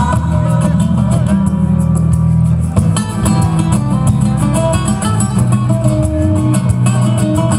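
Dance music with plucked strings over a fast, steady percussive beat.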